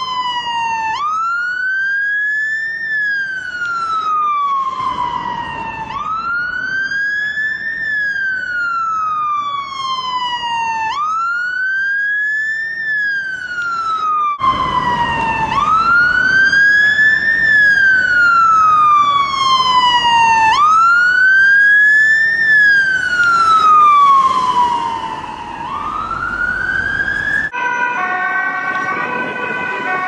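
Danish police siren wailing, its pitch rising over about two seconds and falling over about three, repeating about every five seconds. About halfway through it cuts to a louder recording with more road noise. Near the end the wail stops and gives way to several held tones shifting in steps.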